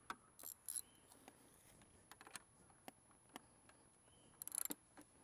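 Mostly near silence, broken by scattered faint clicks and light taps, with a short cluster of them a little before the end.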